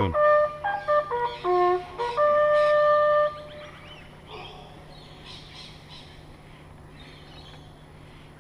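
Bugle call: a few short notes, then one long held note that ends about three seconds in, followed by quiet with faint birdsong.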